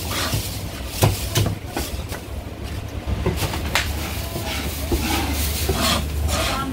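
Scattered knocks of a cleaver on a thick wooden chopping block, over a steady low hum.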